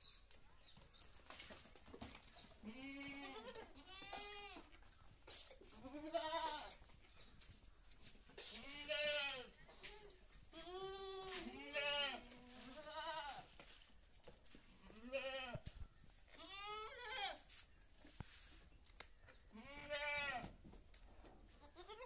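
Several goats bleating in a pen, about a dozen calls one after another at different pitches, each call rising and then falling.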